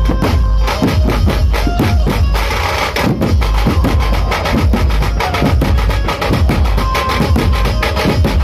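Dhumal band drumming: several large drums beaten hard with sticks in a fast, dense rhythm, with heavy bass and a thin melody line over the beat.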